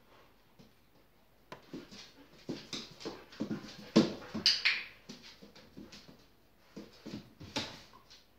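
A dog whining in short, repeated sounds, starting about a second and a half in and loudest around four seconds in, while it works for a treat reward.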